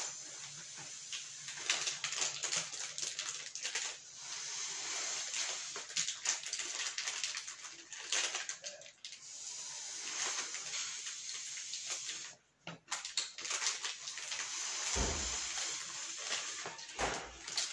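Electric iron gliding back and forth over embroidered cloth: a swishing, hissing rub that comes in sweeps, with a brief pause and a couple of low thumps near the end.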